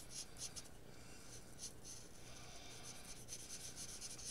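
Faint scratching of a black oil-based paint marker tip stroking over wax paper. The strokes come quickly at first, then a few spaced ones.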